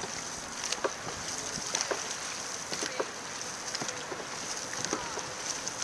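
Water rushing and lapping along the hull of a gliding dragon boat, its paddlers resting between strokes, with faint scattered knocks and clicks about once a second.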